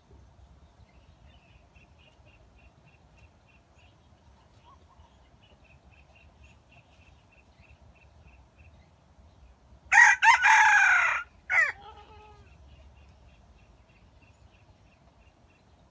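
Red junglefowl rooster crowing once, a short crow of about a second and a half ending in a brief clipped note. A faint high ticking repeats evenly in the background.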